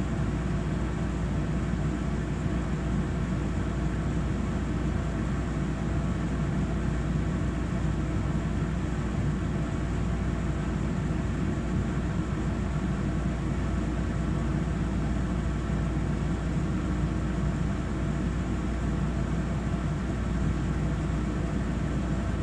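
Steady low hum inside the passenger car of a Taiwan Railway EMU3000 electric multiple-unit train, even and unchanging throughout.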